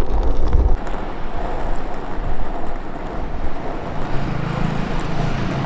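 Road traffic: a motor vehicle going by, with a low rumble at first and a steady engine hum about four seconds in.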